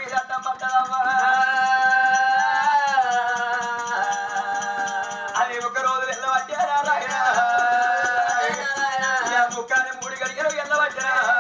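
Oggu katha folk singing: a voice holding long, drawn-out notes that slide between pitches, over a fast, continuous jingling rattle and a hand drum.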